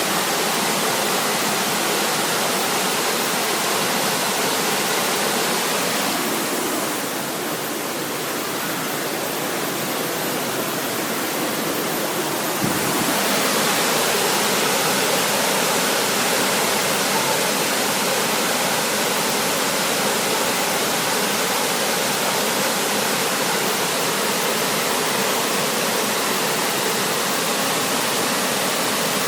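A small, fast-flowing river rushing steadily. For several seconds in the middle the rush softens a little, then returns to full strength abruptly.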